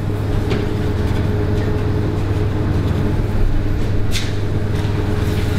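Steady low machine hum with a faint higher whine over it, and a short sharp click about four seconds in.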